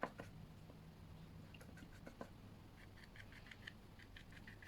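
Faint soft ticks of a paintbrush dabbing paint lightly onto paper, coming more quickly in the second half, over a low steady hum.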